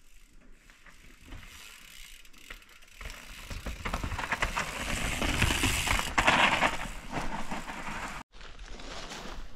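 A mountain bike rides past on a dirt forest trail: tyres crunching over dirt and stones, with a lot of clattering. It builds from about three seconds in, is loudest around six seconds, and cuts off suddenly near the end.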